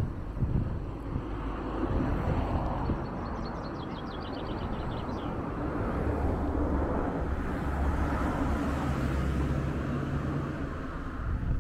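Outdoor street ambience with a vehicle engine running close by, a steady low hum through the second half. A short high-pitched trill of rapid chirps comes about three seconds in.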